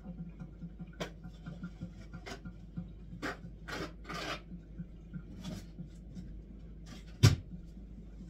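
Household handling noises: scattered short scrapes and rubs a second or so apart, and one sharp thump about seven seconds in, over a faint steady low hum.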